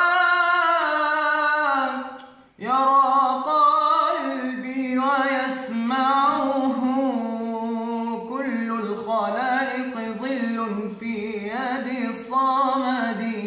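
A young man's unaccompanied voice singing an Islamic ibtihal, a devotional supplication, in long drawn-out notes that bend and waver. It breaks off briefly about two and a half seconds in.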